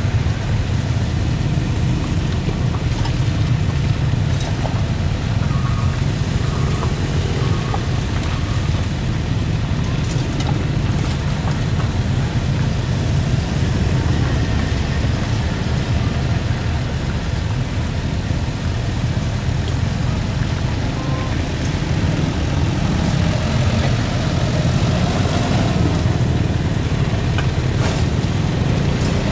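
Cars and a small truck driving slowly past over a muddy, rutted dirt road: a steady low engine rumble.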